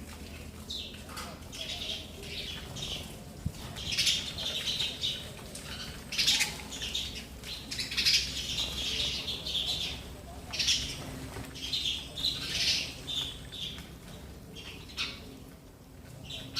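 Sparrows chirping, with many short high calls coming in quick clusters throughout.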